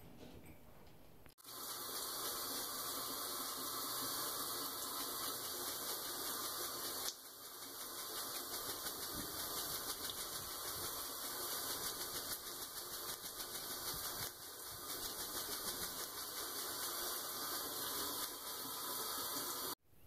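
Shower water spraying in a steady hiss. It starts abruptly about a second in, dips briefly twice along the way and stops just before the end.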